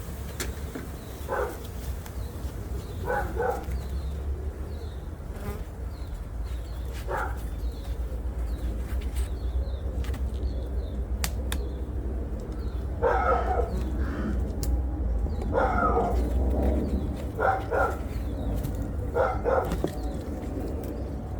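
Honeybees buzzing around an opened hive over a steady low hum. Short pitched calls break in several times, more often in the second half.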